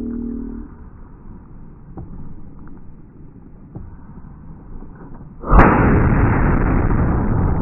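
A carbide cannon, a big steel barrel on a wheeled carriage, fires once: its acetylene charge goes off with a sudden deep boom about five and a half seconds in, followed by loud rumbling that carries on. Before the shot, music stops about half a second in, and there is quiet outdoor background.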